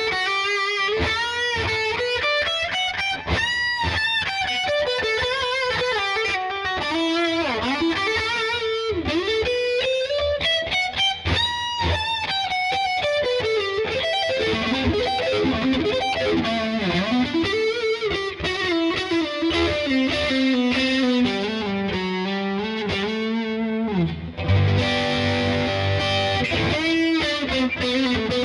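Squier California Fat Strat electric guitar played through a distorted tone: lead lines with string bends, vibrato and fast runs of notes. About 24 seconds in it changes to a held chord.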